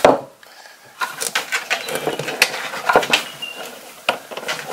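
Irregular clicks, scrapes and rustles of stiff electrical cable wires being worked by hand through a loosened cable clamp into an electrical box.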